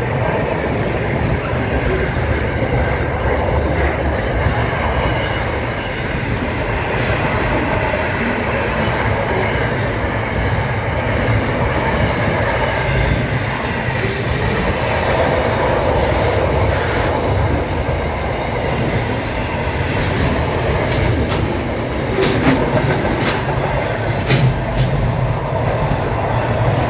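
Container wagons of an intermodal freight train rolling past close by: a loud, steady rumble of steel wheels on the rails, with sharp clicks and knocks in the last several seconds.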